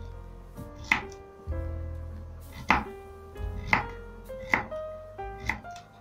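Kitchen knife chopping carrots on a wooden chopping board: about five separate cuts, roughly a second apart.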